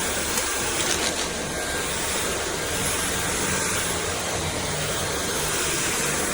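Dyson V8 Animal cordless stick vacuum running steadily on full suction, a dense rushing noise with a thin high whine, with a few small clicks near the start.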